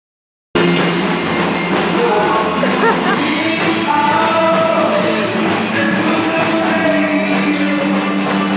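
Rock music with guitar and singing, starting abruptly about half a second in.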